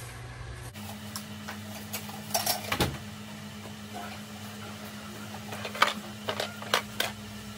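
Cardboard shipping box being handled and moved on a table: scattered short taps, knocks and scrapes about two seconds in and again in a cluster near the end, over a steady low hum.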